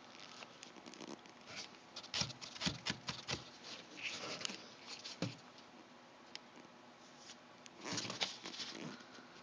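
One-week-old puppies squirming and scrabbling in their bedding: soft, irregular pattering and rustling, busiest about two to three seconds in and again near the end.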